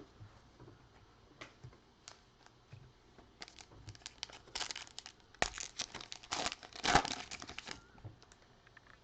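Foil wrapper of a trading-card pack crinkling and tearing as it is ripped open. There are a few light clicks at first, then a dense run of crackling from about four and a half to eight seconds in.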